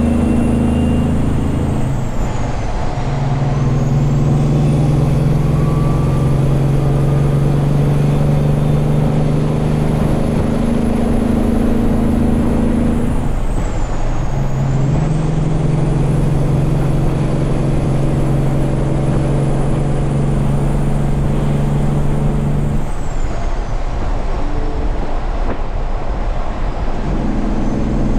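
Semi truck's diesel engine running steadily under way, with a high whine above it. Engine and whine drop away and pick back up three times: a couple of seconds in, about halfway, and for a few seconds near the end.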